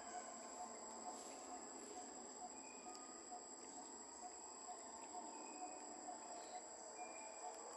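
Faint forest ambience: a steady high-pitched insect drone, with a soft low note repeating evenly about two to three times a second.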